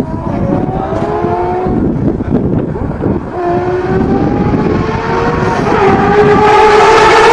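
Ferrari supercar engine accelerating hard. Its pitch climbs in several runs, with short breaks between them like gear changes, and it gets louder near the end.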